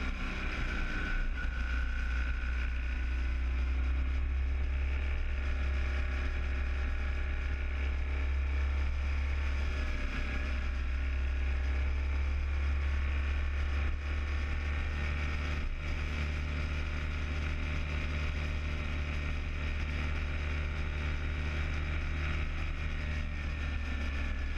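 Motorcycle riding at road speed, heard from a helmet-mounted camera: wind rushing over the microphone as a steady low rumble, with the engine and road noise underneath.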